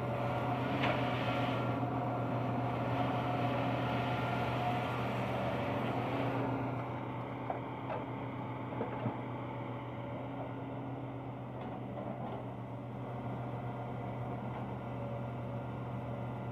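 Hitachi Zaxis 210 hydraulic excavator's diesel engine running steadily as it swings and digs, working harder for the first six seconds or so and then easing off. A few short knocks come near the middle.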